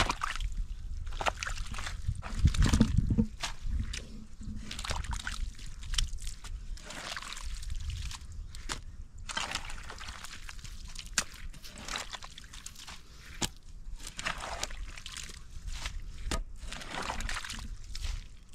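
Wet mud and muddy water sloshing and splashing in irregular bursts, with scattered sharp clicks and a heavier splash about three seconds in.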